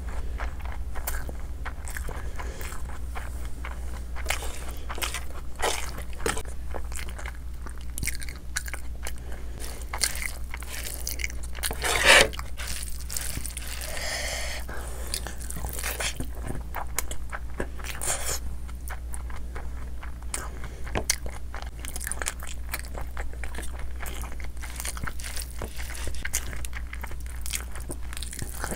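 Close-miked chewing and wet mouth clicks of someone eating rice and curry by hand, with one louder crackling burst about twelve seconds in.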